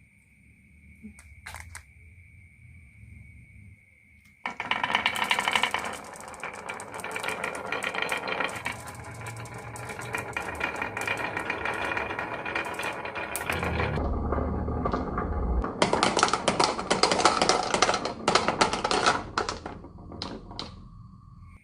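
Many marbles clattering down a marble run, a dense rattle of quick clicks that starts about four seconds in. A short deeper rumble comes partway through, then more clattering that thins to a few scattered clicks near the end.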